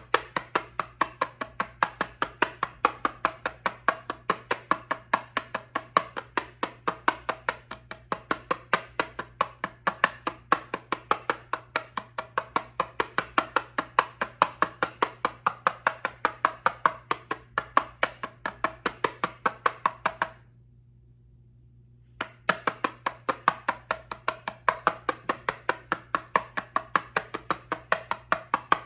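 Steady rapid tapping on an eyeshadow palette, about three or four crisp taps a second, stopping for about two seconds shortly after the twenty-second mark before going on.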